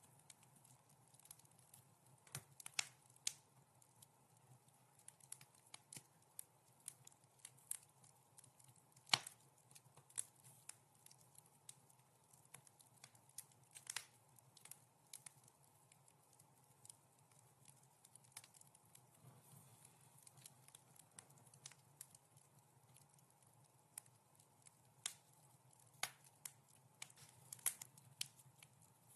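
Wood fire crackling softly, with irregular sharp pops and snaps scattered throughout, over a faint steady background hum.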